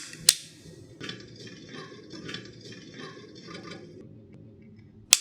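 Metallic clicks and rattling as a revolver is handled for a game of Russian roulette, ending with one sharp loud click near the end as the hammer falls on an empty chamber.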